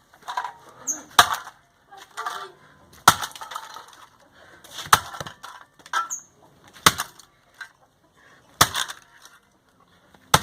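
A computer DVD drive being smashed with heavy blows about every two seconds, with smaller knocks between the strikes.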